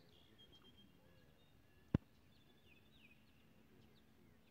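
Faint birdsong of short, descending chirps, with a single sharp click about two seconds in.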